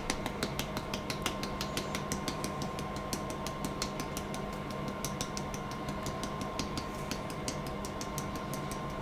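Ground spices being shaken out over raw minced beef on baking paper: irregular small ticks and clicks, several a second. A steady hum runs underneath.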